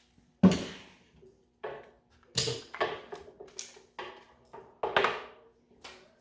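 A string of sharp knocks, clanks and scrapes at uneven intervals, the loudest about half a second in: tools and a small tire and rim being handled on the bench after mounting the tire.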